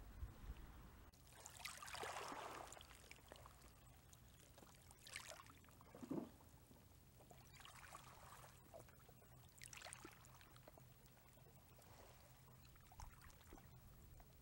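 Near silence with faint sea water lapping against shore rocks, a soft wash every couple of seconds.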